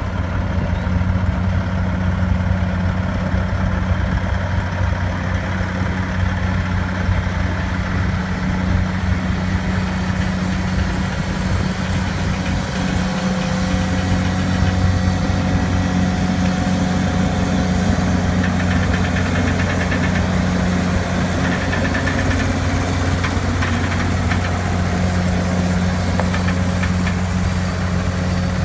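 Diesel engine of a heavy-haul tractor truck running at low speed as it pulls a heavily loaded multi-axle trailer, a steady low drone.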